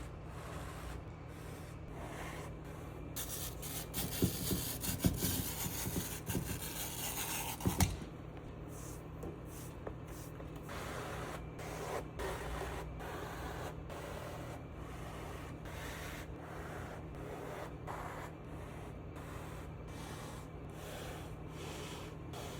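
Leather baseball glove being rubbed and handled, with a louder stretch of rough rubbing and a few sharp knocks a few seconds in, then lighter strokes. A steady low hum sits underneath.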